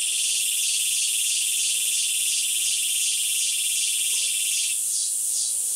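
Loud chorus of insects: a steady high shrill with a lower shrill under it that cuts off near the end, and a pulsing trill repeating a few times a second.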